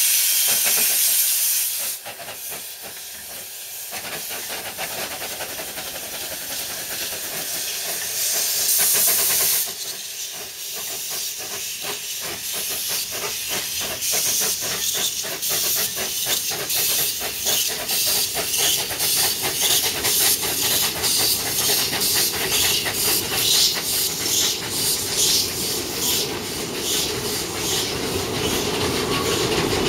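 Two narrow-gauge steam locomotives starting a train: loud hissing of escaping steam for the first couple of seconds and again briefly about eight seconds in, then a steady rhythm of exhaust chuffs as they pull away, slowly growing louder.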